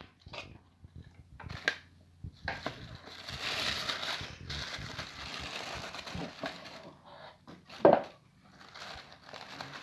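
White wrapping paper being unfolded and pulled open by hand, crinkling and rustling. There are scattered crackles at first, then continuous rustling for several seconds, and one short, louder sound near the end.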